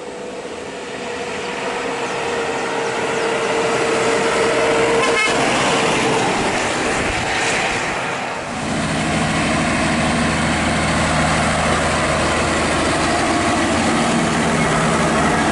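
Heavy diesel trucks going by on the highway: traffic noise builds as a truck approaches and passes in the first several seconds. From about eight seconds in, a tractor-trailer's diesel engine runs close with a deep, steady drone and tyre noise.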